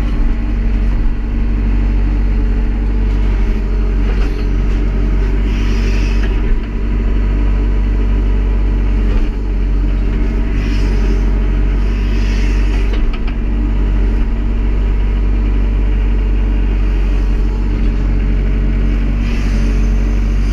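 Tractor-backhoe engine running steadily at raised throttle while it moves gravel forward.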